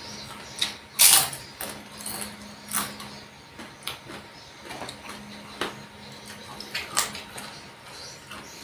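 Close-miked eating sounds of a person chewing: irregular wet smacks and clicks of the mouth, a few a second, the loudest about a second in.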